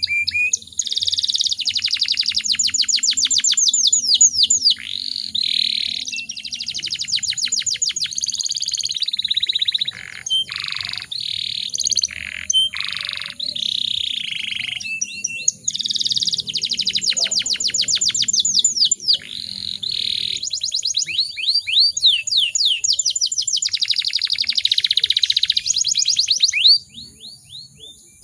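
Domestic canary singing a long, fast song of high rapid trills and rolls alternating with buzzy phrases, with only brief breaks. The song stops about a second and a half before the end.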